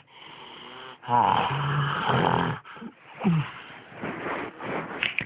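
Snoring: a quieter breath, then one loud, long snore about a second in, followed by a shorter snore and softer breaths.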